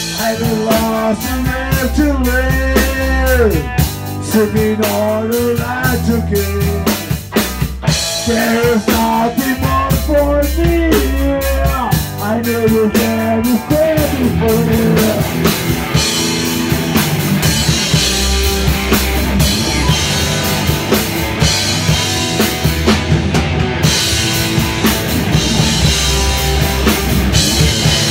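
A rock band playing live in a small rehearsal room: drum kit, guitars and a sung vocal through a microphone. The voice sings through roughly the first half, after which the drums and guitars carry on without it, with the cymbals more prominent.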